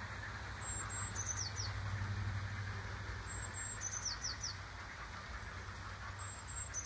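Blue tit singing, repeating a short phrase three times about every three seconds: a couple of very high thin notes followed by three quick falling notes. A low steady hum runs underneath.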